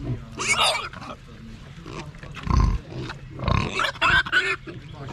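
Wild boars and their striped piglets calling at close range: three short, harsh bursts, with a deep grunt a little past halfway.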